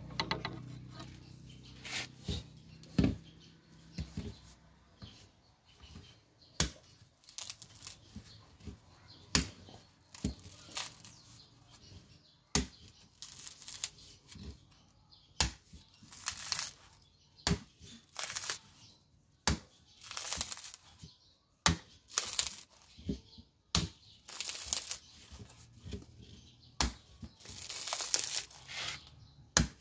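A knife cutting into and prying at the fibrous husk of a whole coconut. Sharp knocks of the blade into the husk alternate with short scraping, splitting bouts as the fibres are worked loose, every second or two.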